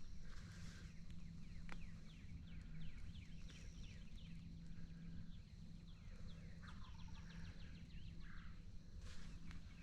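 Several songbirds calling outdoors: many quick falling chirps and a few high whistled notes, over a steady low hum.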